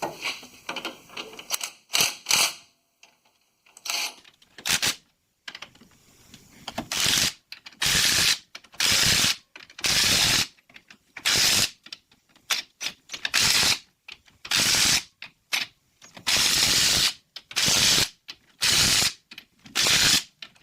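Impact wrench hammering in short bursts, tightening the new rear U-bolt nuts a little at a time so they go down evenly. A few brief blips come in the first few seconds, then a run of about a dozen bursts roughly a second apart.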